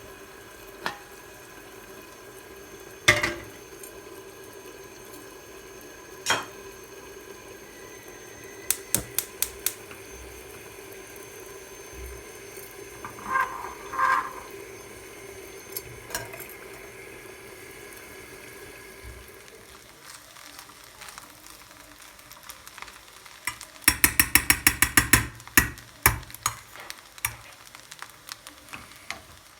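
A utensil stirring and clinking in a cooking pan, with scattered sharp knocks and two short ringing clinks. A steady hum stops about two-thirds of the way through, and near the end comes a quick run of rapid clattering strikes against the pan.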